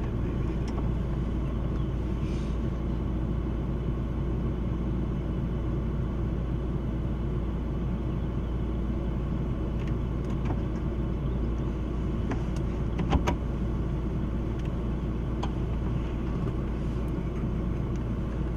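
A motor vehicle's engine idling with a steady low rumble. A few faint clicks come in the second half, with a light knock about thirteen seconds in.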